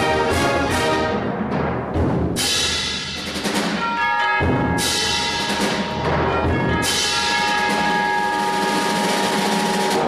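Concert band playing loud full-band chords, struck hard with percussion four times about two seconds apart, the winds holding long chords between the hits.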